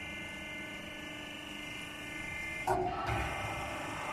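Hydraulic power unit of a gas batch deep fryer running with a steady motor whine as it drives the discharge (unloading) of the fryer; the whine briefly gets louder and shifts about three seconds in.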